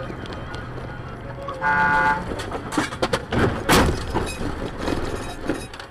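Car horn blaring for about half a second, then a series of hard crashing and crunching impacts as cars collide, the loudest about two-thirds of the way through. A steady hum of road and engine noise from inside the car runs under the horn.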